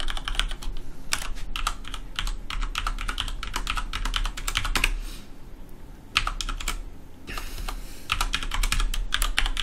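Computer keyboard keys clicking as a command is typed, in quick runs of keystrokes broken by a couple of short pauses.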